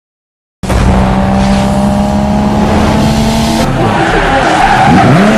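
Loud car engine and tyre-squeal sounds starting suddenly after a short silence, with steady held tones and some sweeping pitches near the end.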